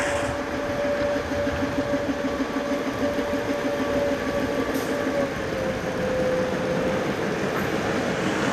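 Diesel locomotive running slowly past, its engine giving a steady throb with a whine above it that drops slightly in pitch about five seconds in.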